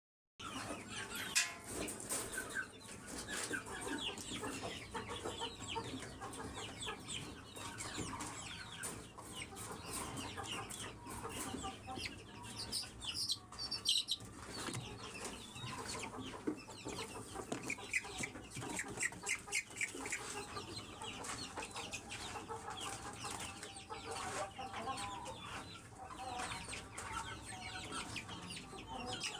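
Indian parrot-beak Aseel chicks calling: a continuous run of many short, high peeps mixed with clucking.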